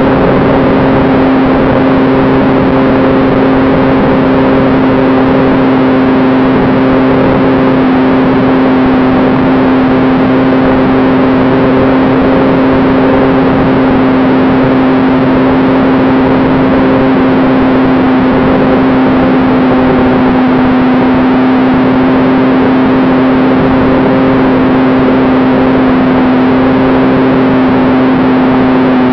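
Onboard sound of a model BD-5 fan-jet's ducted-fan motor running steadily in flight: a loud, distorted hum holding one constant pitch over a dense rushing hiss.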